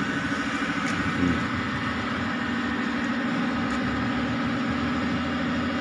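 An engine idling steadily, with an even hum that does not change.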